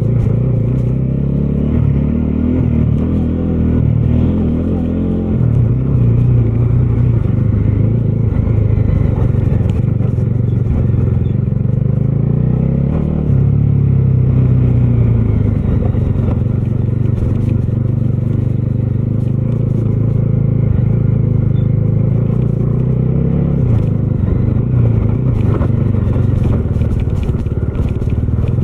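Bajaj Dominar 250's single-cylinder engine running on the move, its pitch shifting up and down several times as the rider works the throttle and gears. There are light clicks and rattles, more of them near the end.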